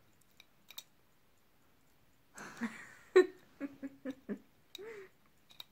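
After a couple of seconds of near quiet, a person makes a string of short wordless vocal sounds, the loudest a little after three seconds in and a short rising-and-falling one near the end.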